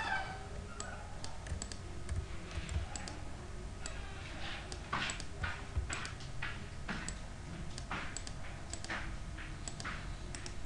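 Computer keyboard keys and mouse buttons clicking irregularly, a scatter of sharp taps.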